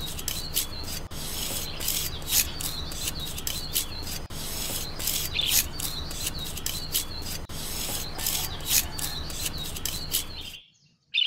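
A miniature hand trowel scrapes and smooths wet concrete in quick repeated rubbing strokes, a few a second, with faint bird chirps behind. It stops suddenly shortly before the end.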